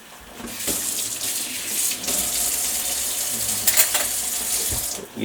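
Water running steadily, as from a kitchen tap into a sink or pot, starting about half a second in and stopping near the end.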